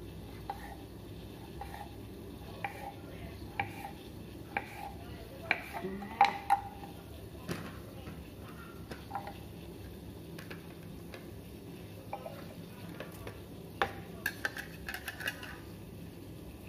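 Kitchen knife cutting through a block of tempe onto a wooden cutting board, one cut about every second, then a few louder knocks as the slices are set onto a plastic plate, and a cluster of light clicks near the end. A steady low background noise runs underneath.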